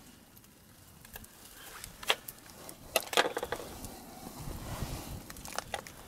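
Several sharp knocks and clatters, with a low rumble starting about four and a half seconds in.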